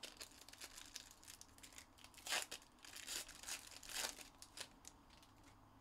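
Foil trading-card pack wrapper being torn open and crinkled by hand: a run of small crackles, with the loudest tears a little over two seconds in and again about four seconds in.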